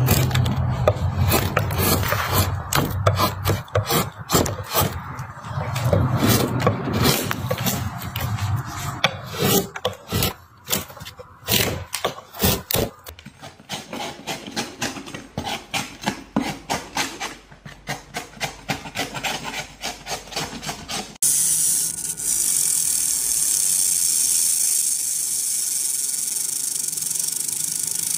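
Fast scraping and cutting strokes of a knife through hard, dry material, then slower rhythmic knife strokes through a large crusty loaf. For the last seven seconds or so it switches abruptly to the steady hiss of a laser engraving machine at work.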